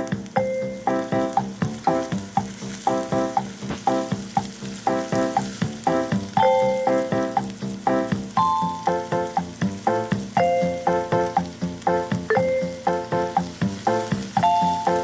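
Background music with a light melody of short repeated notes over a steady bass line. Food sizzles in a frying pan underneath it.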